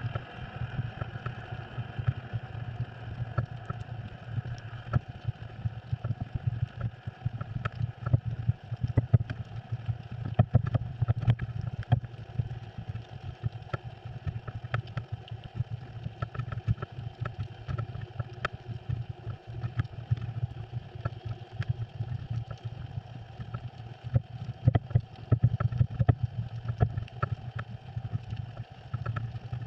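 Underwater sound: a steady low hum with frequent irregular clicks and crackles.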